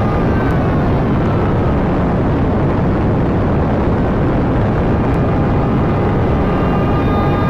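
A loud, steady roaring rumble with no break, used as the exaggerated sound of a dad's sneeze. Faint steady tones over it fade out in the first second and come back near the end.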